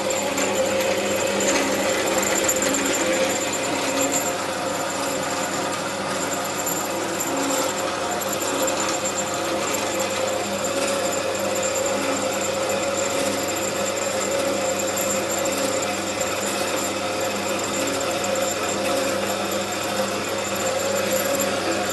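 A Rong Fu 4x6 horizontal metal-cutting bandsaw, fitted with a new bimetal blade, runs steadily while cutting a metal rod clamped in its vise, with a steady whine over its motor hum.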